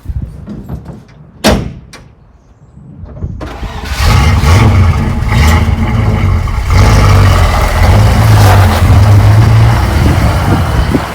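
A single bang about a second and a half in, then the Land Rover Series III's V8 engine is cranked and catches about four seconds in, running loudly with its note rising and falling as it is revved.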